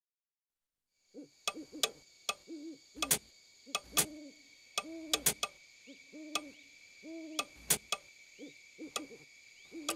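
An owl hooting over and over, as a night sound effect, starting about a second in after silence. Sharp clicks fall between the hoots, over faint steady high tones.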